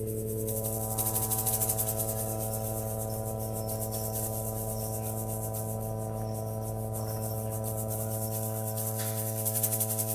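Live psychedelic rock band holding a sustained, droning chord over a steady low bass note, with a small hand rattle shaken quickly on top. The rattle swells about a second in and again near the end.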